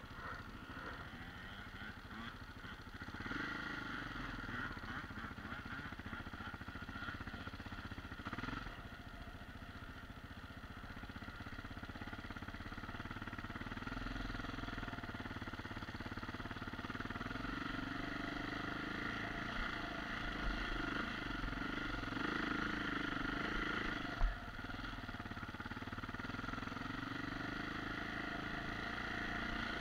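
Husqvarna TE 610E enduro motorcycle's single-cylinder four-stroke engine running under way, its pitch shifting with the throttle and growing louder through the second half. A single sharp knock about two-thirds of the way in.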